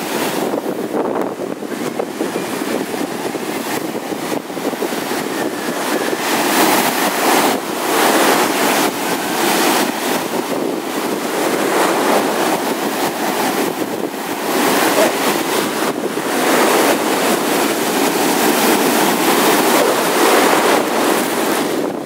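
Baltic Sea waves breaking and washing up over sand: a continuous rush of surf that swells and eases as each wave comes in.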